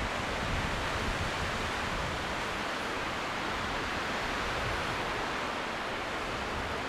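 Strong wind blowing steadily, an even hiss with a fluttering low rumble of wind buffeting the microphone.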